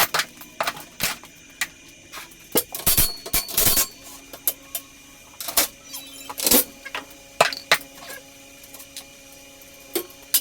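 Irregular metal clinks and knocks of tools and garage door hardware being handled, loudest in clusters a few seconds in and again past the middle, over a faint steady hum.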